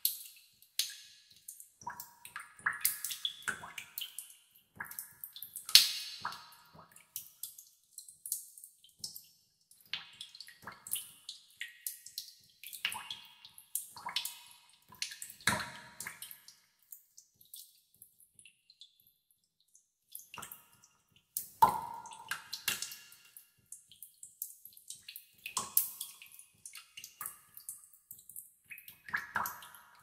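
Water dripping in a cave: single drops falling into a pool at irregular intervals, each with an echoing tail, with a lull of a few seconds past the middle.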